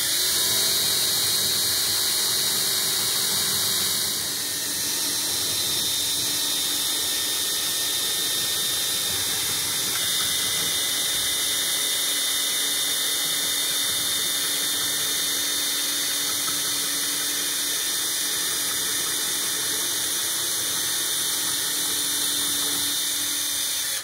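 Cordless drill running steadily as its diamond-tip bit grinds into a bone china teacup, a high-pitched squeal over the motor's whine. The drilling dips briefly about four seconds in and cuts off suddenly at the end.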